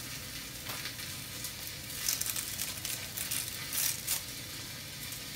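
Frozen pork roast sizzling steadily as it sears in hot ghee in an Instant Pot on sauté, with a few sharper crackles. Along with it, the dry crinkle of papery onion skin being peeled by hand.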